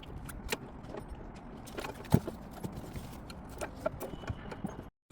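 Scattered clicks and knocks of tools and parts being handled while fitting an e-scooter's rear hub-motor wheel, with one louder knock about two seconds in.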